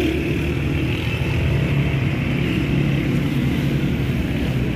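Steady street traffic noise: vehicle engines running with an even low hum.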